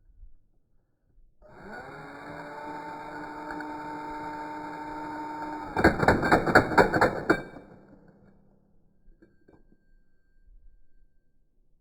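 Electric impact wrench motor spinning up and running freely for a few seconds, then hammering in a rapid run of loud impacts for about a second and a half as it bites, typical of tightening a wheel's lug nuts.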